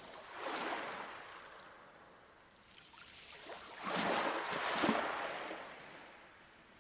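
Light waves washing onto a pebble beach: a small wash soon after the start, then a louder one about four seconds in that fades away.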